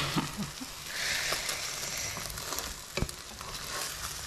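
Egg omelette and bread frying in butter in a nonstick pan, a steady sizzle that grows louder about a second in. A single sharp tap sounds about three seconds in.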